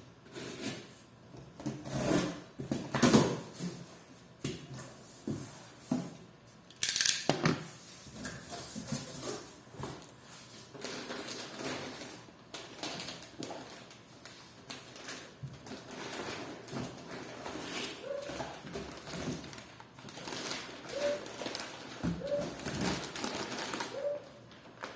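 Packaging and a plastic motorcycle headlight cowling being handled: irregular rustling, crinkling and light taps, with a brief loud rasp about seven seconds in and a few short squeaks near the end.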